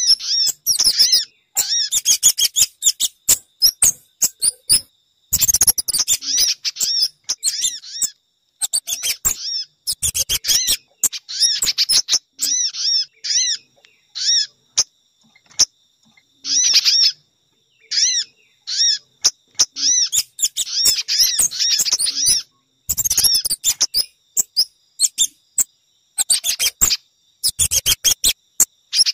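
Bird-lure recording of small songbirds, sogon, spiderhunter (pijantung) and kemade calls mixed together. It plays bursts of rapid, high chirping notes broken by sudden dead-silent gaps where the loop is cut.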